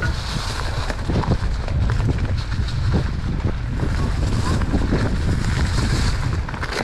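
Wind buffeting the camera microphone while a mountain bike rolls along a dry dirt and leaf-litter trail, with tyre noise and frequent small clicks and knocks as the bike rattles over the rough ground.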